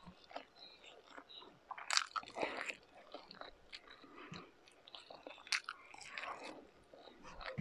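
A person chewing a mouthful of rice and sweet cured pork tocino, with many short wet clicks and smacks of the mouth, loudest about two seconds in.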